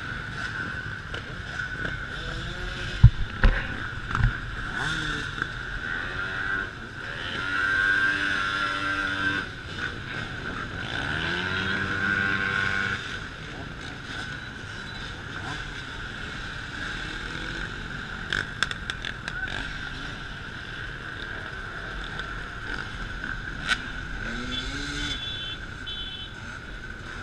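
Many dirt-bike and quad engines running together as a stream of riders passes close by. Several engines rev up and back down, loudest between about eight and thirteen seconds in. A few sharp knocks come about three seconds in.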